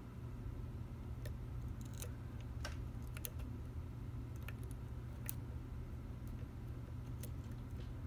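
Steel lock picks working the pin stack of an American Lock 5200 pin-tumbler padlock: irregular small metallic clicks and ticks as a hook pick lifts pins against a pry-bar tensioner, roughly a dozen spread through, over a low steady hum.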